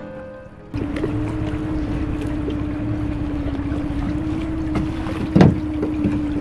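Background music cuts off just under a second in, giving way to a small boat's outboard motor running steadily at an even hum, with wind on the microphone. A single loud thump comes about five seconds in.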